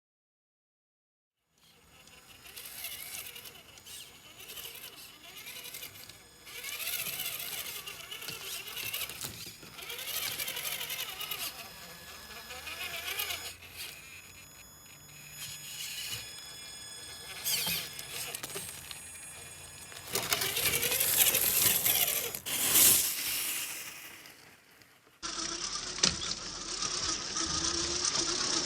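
Electric RC crawler truck driving, its motor and gears whining high and thin, rising and falling with the throttle, in several short cuts after a second or two of silence.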